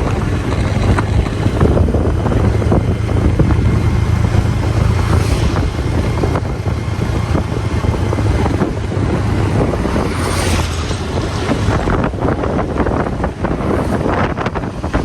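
Engine and road noise of a moving vehicle heard from inside, a steady low hum under rumble, with wind buffeting the microphone.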